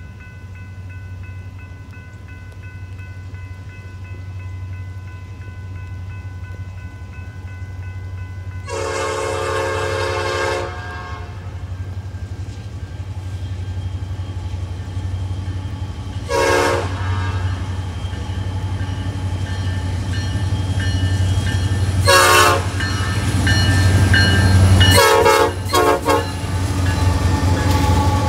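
Norfolk Southern diesel freight locomotives approaching, their engines rumbling louder as they near, while the lead unit's air horn sounds: a long blast about nine seconds in, then shorter blasts about seven, thirteen and sixteen seconds in, the last broken into two.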